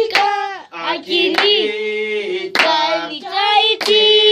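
Voices singing a slow Swahili worship chorus in long held notes, with a sharp hand clap a little more often than once a second.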